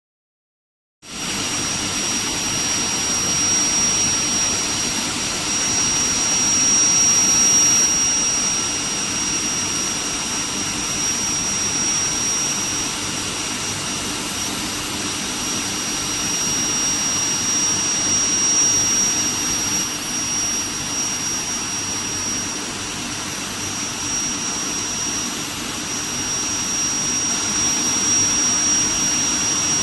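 Steel plate induction heat treatment line running: a steady machine noise with a high, steady whine over it, starting abruptly about a second in.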